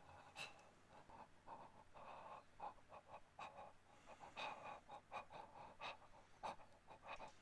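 Faint, ragged breathing with small gasps from a man in distress, coming in short irregular breaths.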